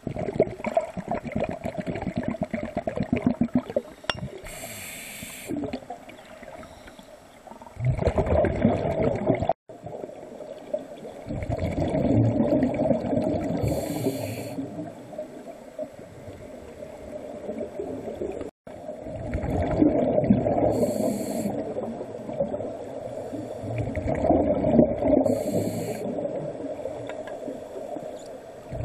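Muffled underwater sound of a scuba diver breathing through a regulator: rushing, bubbling exhalations every several seconds and a short hiss of inhaled air four times, with water moving around the camera.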